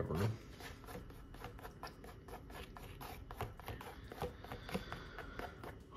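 A plastic straw scraping and dabbing thick wet acrylic paint across a cloth canvas, making a soft, irregular run of small scratchy clicks.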